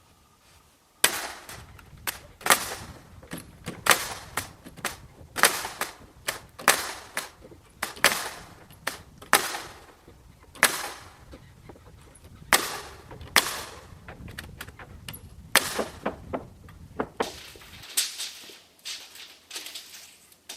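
Hammering: a long run of sharp strikes, a heavy blow about every second or so with lighter taps between, over a low hum that stops near the end.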